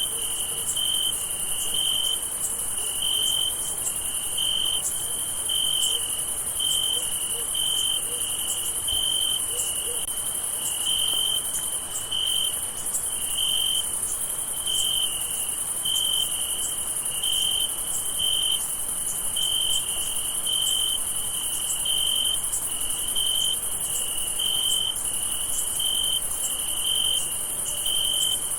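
Crickets chirping at night in an even rhythm, a little over one chirp a second, over a continuous high-pitched insect trill.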